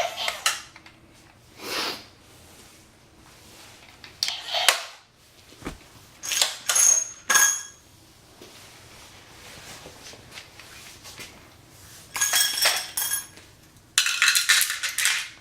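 Small electric motors in a remote-control toy excavator whirring in short bursts of about a second, several times, with plastic clicking and rattling as the arm and tracks are worked.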